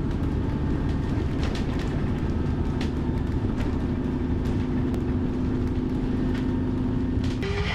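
Bus engine and road noise heard from inside while driving: a steady low rumble with a steady whine and occasional rattles. The sound cuts off abruptly near the end.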